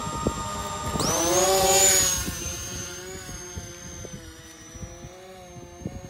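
Electric motors and propellers of an XK X520 VTOL model plane whining at low throttle, then spooling up sharply about a second in for a vertical takeoff. The whine then holds a high pitch and fades as the plane climbs away, with wind buffeting the microphone.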